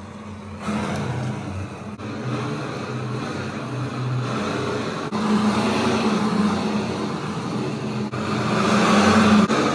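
Handheld camping gas torch burning with a steady rushing hiss as its flame scorches the surface of a wooden hiking stick. It grows louder about halfway through and again near the end.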